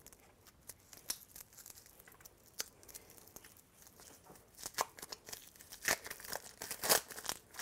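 Thin clear plastic film being peeled and torn off a bath fizz ball, crinkling. The crackles are faint and sparse at first, then come thicker and louder in the last couple of seconds.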